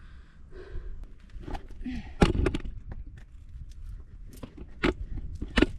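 Knocks and scuffs of scrambling up bare rock with a handheld camera: a sharp knock about two seconds in, the loudest, and two more near the end, with breaths and a low wind rumble on the microphone.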